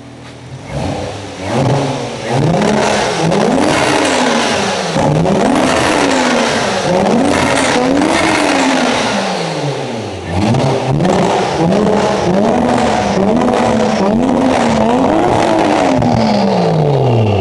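Toyota Mark II JZX90's inline-six engine revved again and again with no load, about nine revs in a row, each rising and falling over a second or two, before dropping back to idle near the end.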